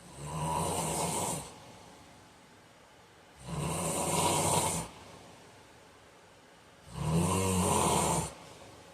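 A man snoring in his sleep: three snores about three and a half seconds apart, each a low buzzing snore lasting over a second.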